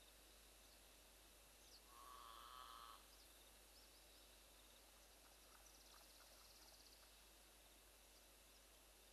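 Near silence: faint outdoor ambience with scattered short, high bird chirps, and one steady call about a second long, starting about two seconds in.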